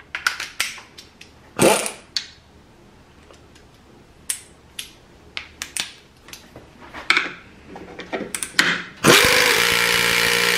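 A few clicks and knocks of tools being handled, then about nine seconds in a Harbor Freight Earthquake air ratchet starts and runs steadily on a bolt in a wooden board. It is driving the bolt but lacks the power to tighten it down.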